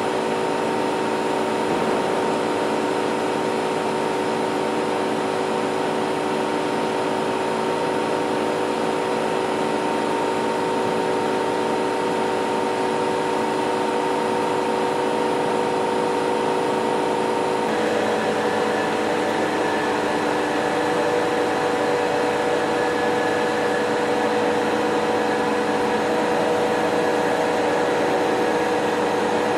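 Novar CNC bed milling machine running under power: a steady hum with several held whining tones. About two-thirds of the way through, the pitches shift abruptly to a new set and then hold steady.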